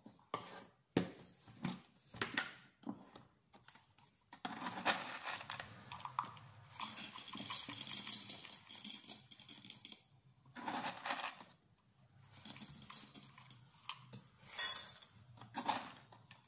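Dry cat kibble scooped with a plastic cup and poured into a dish and a steel bowl: a rattling pour in the middle, with scattered clicks and knocks of the cup against the containers and dishes, the loudest knock near the end.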